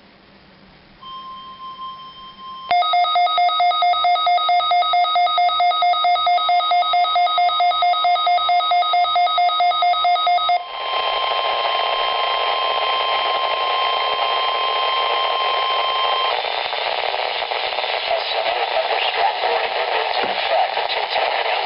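Synthetic emergency alert tones: a steady alarm tone near 1 kHz, then about eight seconds of a loud, rapidly pulsing tone made of several pitches together. It gives way to a loud hiss like radio static, with the steady tone sounding over it for several more seconds.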